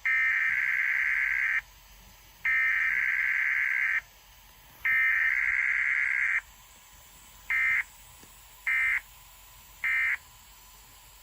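Emergency Alert System SAME data bursts: a buzzy, screechy digital header sent three times in bursts of about a second and a half, then three short end-of-message bursts about a second apart. No attention tone comes between them, the pattern of a Required Weekly Test.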